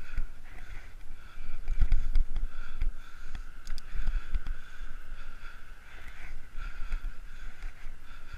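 Uneven low rumbling of wind buffeting on the microphone of a bicycle-mounted action camera, with a steady hiss of the ride along a paved bike path.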